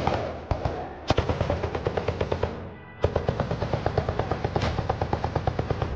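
Automatic gunfire in long bursts of about ten shots a second, with one louder crack about a second in and a brief break near the middle.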